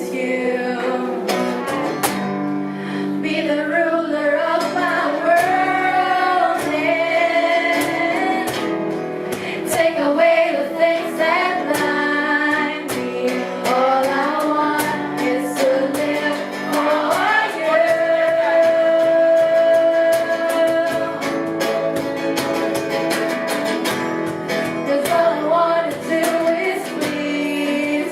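Music: a woman singing a melody with long held notes over guitar accompaniment.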